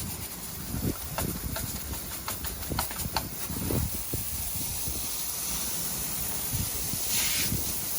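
Hose spraying water across freshly poured exposed-aggregate concrete, washing the surface slurry off to bare the stones; a steady hiss with a few sharp clicks in the first half.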